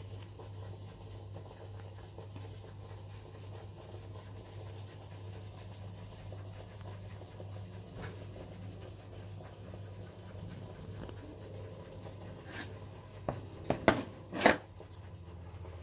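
A steady low hum under faint scratchy rustling, then a quick run of sharp knocks or clicks about two seconds before the end, the last two the loudest.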